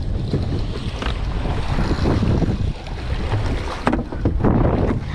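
Wind rumbling on the microphone aboard a small fishing boat, with a few sharp knocks about four seconds in.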